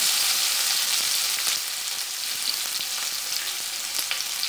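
Crushed garlic and grated ginger sizzling in hot oil in a metal kadai, with a few light clicks of a metal ladle stirring against the pan. The sizzle eases a little after about a second and a half.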